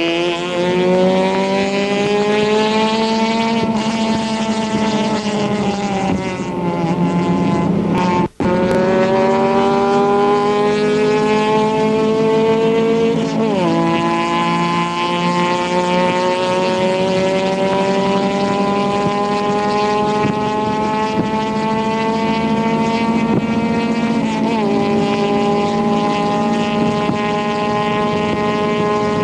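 Isuzu Stylus race car's four-cylinder engine running hard at racing speed. The revs climb, ease off for a couple of seconds, and the sound cuts out for an instant about eight seconds in. Then the revs rise again with two sudden drops in pitch, about 14 and 25 seconds in, each followed by a slow climb, as it shifts up through the gears.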